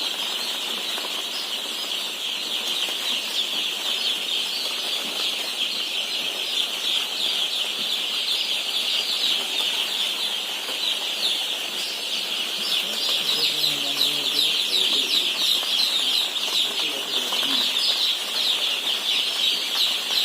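A flock of broiler chicks peeping together in a dense, continuous chorus of high, overlapping calls, growing louder a little past halfway.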